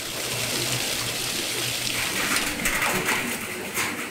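Water rushing steadily over a low machine hum in a tofu workshop. From about two and a half seconds in, metal scoops clink and scrape through a tub of wet tofu curds.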